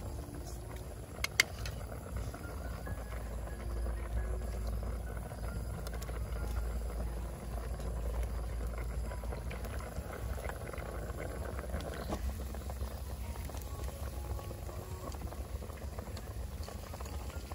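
Large pot of pork soup boiling hard over a wood fire, bubbling steadily, with one sharp click about a second in.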